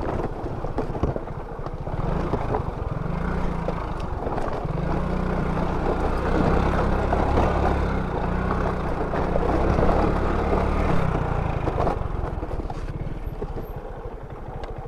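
Motorcycle engine running under load, its pitch stepping up and down as the rider works the throttle; it gets louder in the middle and eases off near the end.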